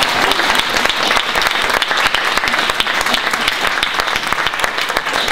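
Audience applauding: many people clapping steadily and loudly.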